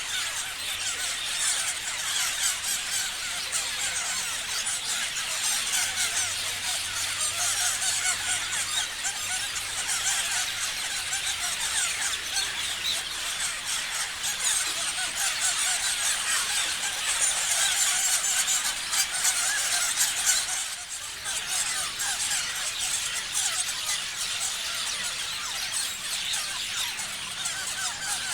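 Many parrots chirping and screeching at once, a dense unbroken chatter of short high calls, with a brief lull about three quarters of the way through.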